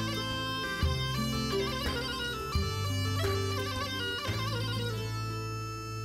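Background music: a wind instrument plays a melody over a steady low drone, in the manner of a bagpipe.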